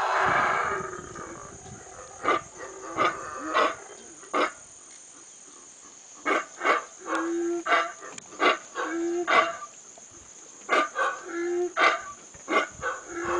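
Howler monkeys calling: a loud deep roar fades out in the first second, then a string of short barking grunts follows, singly and in quick clusters, some trailing into a brief lower note.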